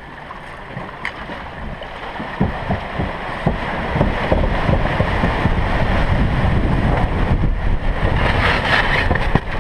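A boat on its steel launching cradle sliding down a slipway into the sea. There is a low rumble with rattling knocks, and water splashes and surges along the hull, growing louder from about two seconds in.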